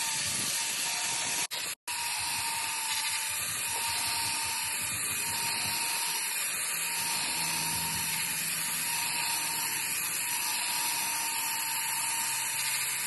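Power polishing tool working a forged steel knife blade: a steady, hissing grind over a constant motor tone. The sound cuts out very briefly about one and a half seconds in.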